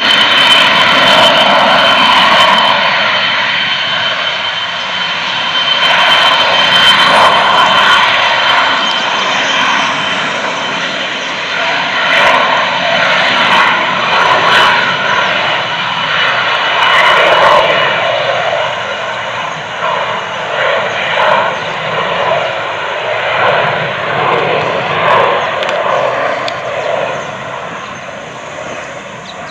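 Turbofan engines of a Brazilian Air Force Embraer ERJ-family jet at takeoff power during its takeoff roll: a steady high whine over a loud rush of jet noise that swells and dips, easing off in the last few seconds as the jet lifts off.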